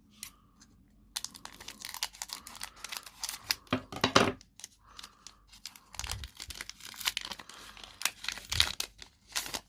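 Foil wrapper of a Pokémon booster pack being torn open and crinkled. The irregular crackling starts about a second in.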